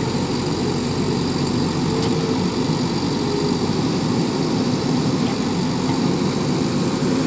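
Diesel engine of a JCB backhoe loader running steadily at an even speed, with no revving.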